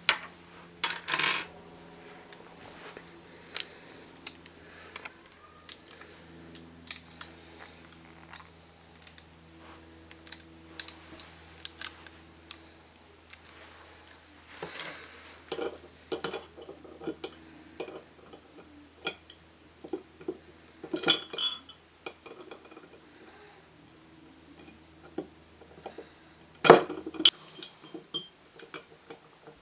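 Plastic Rubik's Cube pieces clicking and knocking against each other and the glass of a jar as the cube is assembled inside it: scattered irregular clicks, with one louder knock near the end, over a faint steady hum.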